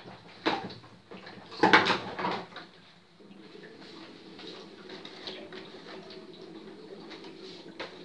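Large plastic water-dispenser bottle being handled and set onto the dispenser: a knock about half a second in, then a louder clatter and thump around two seconds in. After that a steady low hum carries on.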